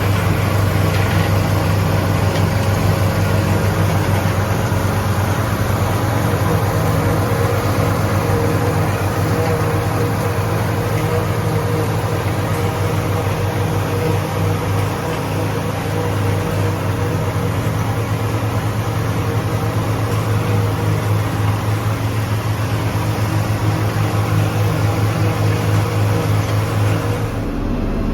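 A John Deere 4440's turbocharged six-cylinder diesel runs steadily under load, powering a Sperry New Holland 782 forage harvester chopping corn, with a dense rushing noise over the engine's low drone. The sound changes abruptly near the end.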